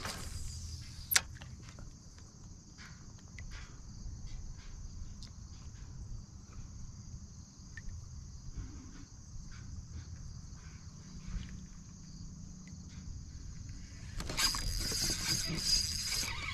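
Insects, crickets or cicadas, droning steadily in a high band, with scattered faint ticks and one sharp click about a second in. About fourteen seconds in a louder, rough, hiss-like noise takes over.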